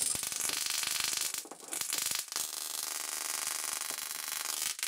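High-voltage sparks from an ignition coil pack arcing at a probe tip onto a foil-wrapped CD-spindle capacitor, charging it: a continuous buzzing crackle that drops out briefly a few times.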